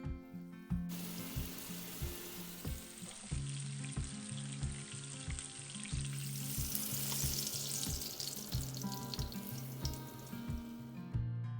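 Bonita (false albacore) fillets searing in a hot pan, sizzling loudly; the sizzle starts about a second in and dies away near the end.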